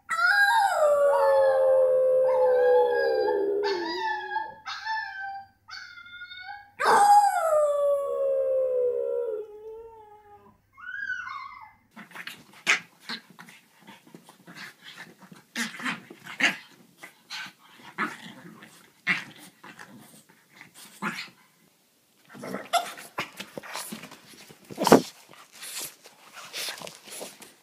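A French bulldog howling: two long howls that slide downward in pitch, with short yelps between them. About twelve seconds in this gives way to rustling and scuffling as two dogs wrestle on a couch, with one sharp knock near the end.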